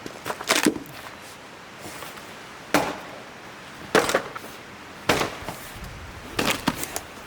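Axe chopping into a log to split it for firewood: five sharp strikes about a second or so apart.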